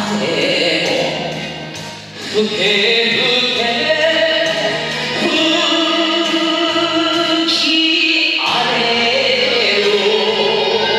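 A man singing an enka ballad into a microphone over instrumental accompaniment, holding long notes with vibrato; the music dips briefly about two seconds in.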